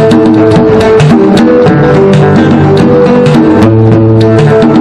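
Live Amazigh song accompaniment: a plucked banjo melody with rapid hand-drum strokes on a djembe, over steady held notes.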